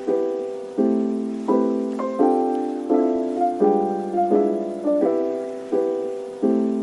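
Background music: a piano or electric piano playing slow repeated chords, each struck and left to fade, at a steady gentle pace.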